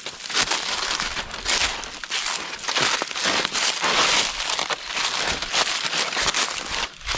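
Footsteps crunching through dry fallen leaves in an irregular, crackling run.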